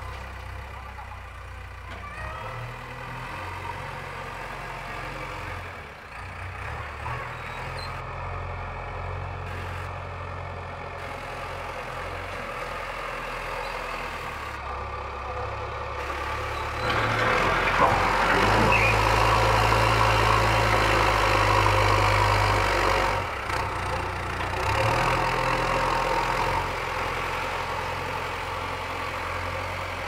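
JCB 3DX backhoe loader's diesel engine running steadily, then revving up louder for several seconds past the middle while the front loader bucket pushes into a dirt pile, before easing back.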